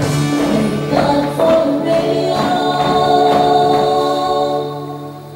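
Country song playing, with singing over the band. It holds one long chord that fades away near the end.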